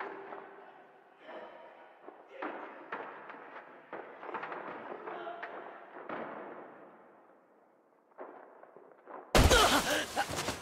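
Anime fight sound effects: a run of muffled thumps and scuffles during hand-to-hand sparring. About nine seconds in comes a sudden loud heavy thud as a body is thrown and slams onto the dirt.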